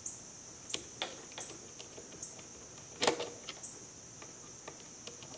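Small metal clicks and taps of a screwdriver fitting and turning a screw in the action of a Beaumont 1871/88 rifle beside the closed bolt, with one louder click about three seconds in.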